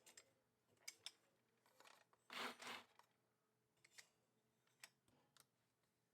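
Faint, irregular metal clicks and a short rasp about two seconds in, from the mechanism of an antique Singer 12K hand-crank sewing machine being handled.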